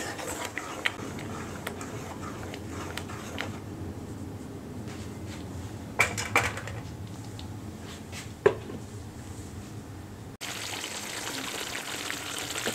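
Thick cream-and-yogurt curry gravy simmering in a nonstick pan: a soft, steady bubbling with a few light clicks. Near the end it turns to a louder, brighter sizzle as the gravy bubbles hard and starts to release its oil, a sign the masala is cooking through.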